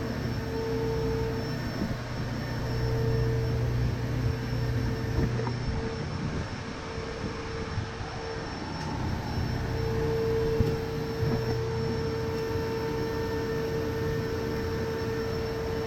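A steady machine hum with a constant whine over a noisy hiss, running unchanged.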